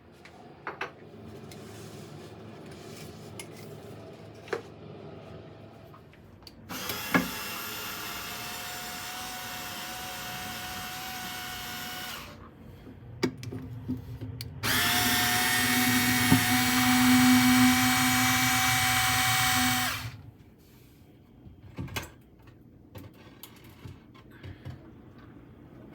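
Power drill running in two steady runs of about five seconds each, the second louder, with small clicks and knocks before, between and after.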